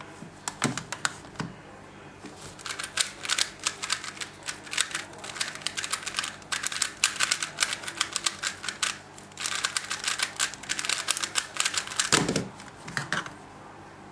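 Plastic 3x3 Rubik's cube being turned quickly, its layers clicking in rapid runs of moves with a short break in the middle. About twelve seconds in comes a single heavier thump, the hands slapping down on a Speed Stacks timer to stop it.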